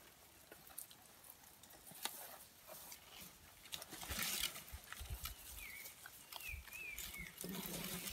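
Elephant browsing in dry thornbush: scattered crackles of snapping twigs and rustling branches, with a few dull thumps. In the second half a bird gives a run of short, down-slurred chirps.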